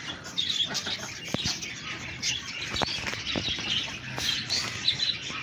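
Many small birds chirping continuously in a dense, overlapping chatter, with a few short sharp clicks or knocks among them.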